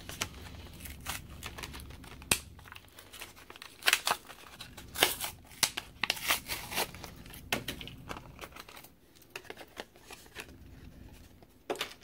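Plastic blister pack and its cardboard backing being torn apart and crinkled by hand, giving irregular crackling and ripping. It is busiest in the middle and thins out near the end.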